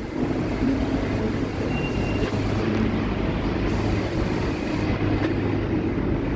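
Steady low mechanical hum and rumble, even in level throughout, with no distinct single events standing out.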